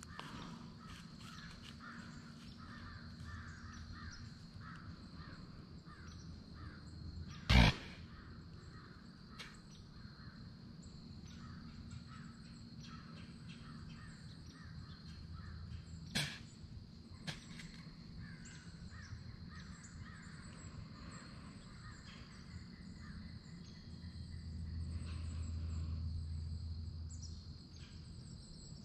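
Crows cawing repeatedly in the background, thinning out after the first ten seconds. A single loud sharp knock about seven and a half seconds in, and a smaller one a little past the middle.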